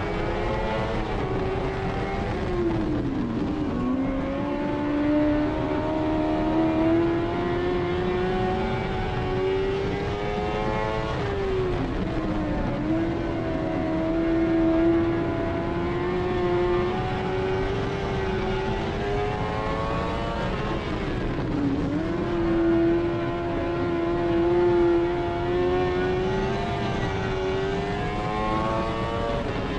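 Dirt-track race car's engine at racing speed, heard from inside the cockpit. Its pitch climbs steadily on the throttle and drops sharply four times as the driver lifts for the corners.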